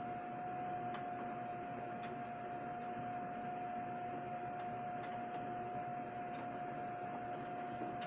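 A steady, high-pitched electrical whine at one pitch over low background hiss, with a few faint clicks as cable connectors are handled and plugged into the back of a desktop computer.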